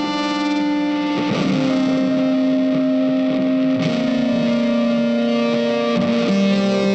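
Background music of long, held, distorted electric guitar notes that change pitch every couple of seconds.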